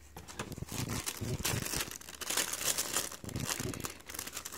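Thin tissue wrapping paper in a shoe box crinkling as hands pull it open, a run of irregular crackles and rustles.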